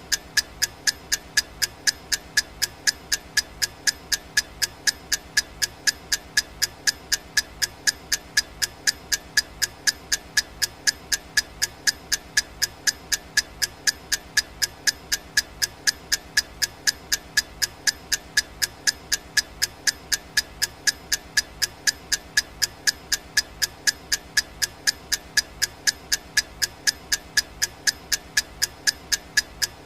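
Clock ticking sound effect: a sharp, regular tick about twice a second, steady throughout.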